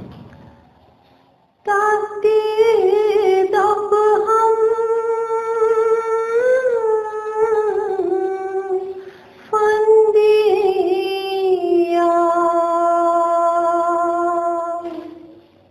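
A woman's voice singing a slow, unaccompanied melody of long held notes with vibrato, in two phrases with a short break about nine seconds in.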